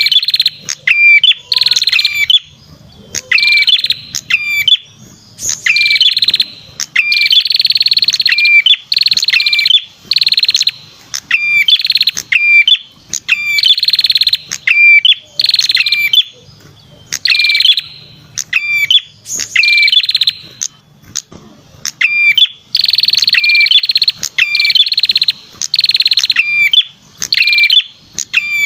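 Perenjak kepala merah (red-headed prenjak) song played as a bird-lure call. Loud, rapid buzzy trills about a second long alternate with sharp, hooked chirps, over and over with only short gaps.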